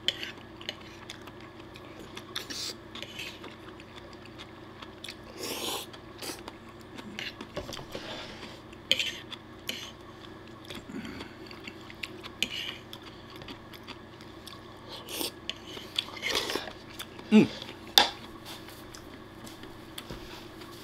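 Metal fork scraping and clicking against a wooden plate as the last scraps of pasta are picked up, with chewing in between. Two sharper knocks come a few seconds before the end.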